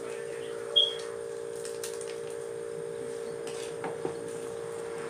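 Wooden spoon stirring a simmering pot of seafood soup, giving a few faint knocks, over a steady hum. A brief high-pitched chirp comes about a second in.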